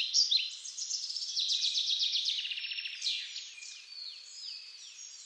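Several birds singing at once: quick overlapping chirps and short falling whistles, with a rapid trill in the first half, growing fainter near the end.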